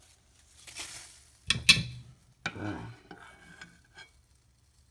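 A metal utensil clanks sharply against a saucepan and bowl as boiled lemongrass and mint leaves are lifted out of the hot tea. A short hiss comes first, then two loud clanks about a second and a half in, another ringing clank about a second later, and a few lighter clicks.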